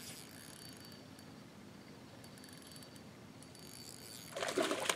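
Spinning reel clicking faintly in short rapid runs as a hooked smallmouth bass is played on the line, with a louder rasping burst a little after four seconds.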